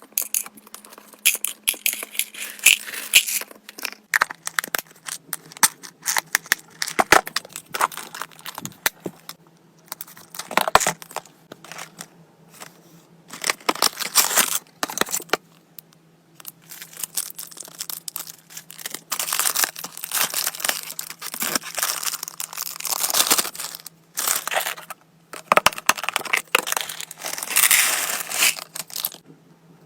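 Packaging being crinkled, crushed and torn by hand in irregular bursts of crackling, as a box is unpacked.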